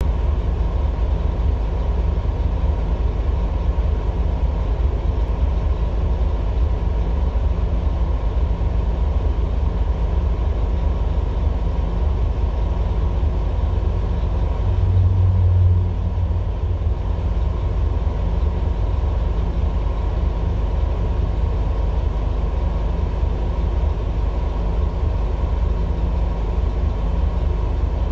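Scania N230UD double-decker bus's five-cylinder diesel engine idling steadily, heard inside the bus on the upper deck, with a brief swell in the low hum about halfway through. The engine has recently been rebuilt.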